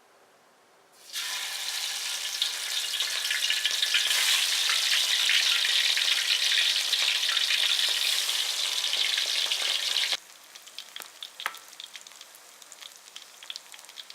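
Food frying in hot oil in a pan: a loud, dense sizzle with crackling starts about a second in and cuts off abruptly around ten seconds in. A quieter stretch with a few light clicks follows.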